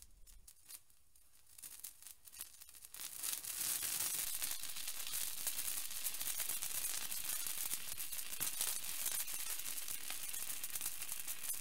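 A handheld sparkler fizzing and crackling: a few faint crackles at first, then a steady, dense sputtering hiss from about three seconds in.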